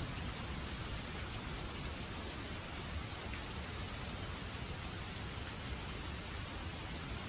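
Waterfall: a steady rush of falling water with a deep low rumble underneath, unchanging throughout.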